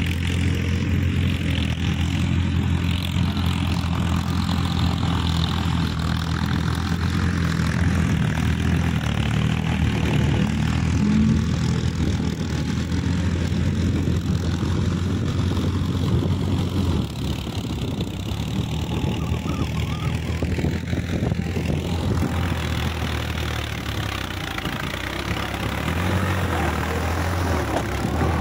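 Diesel tractor engine running steadily while it drives a rotavator tilling a wet field, a continuous low drone. The drone weakens and wavers for several seconds past the middle, then comes back steady near the end.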